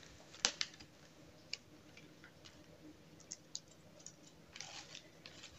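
Faint scattered light ticks and a brief rustle from a plastic bag of grated cheese being handled while the cheese is sprinkled and spread by hand over a tart, with one sharper click about half a second in.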